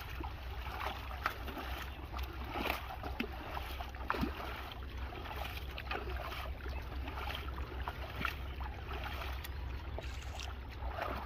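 Water splashing and trickling, with scattered small knocks, over a low steady rumble.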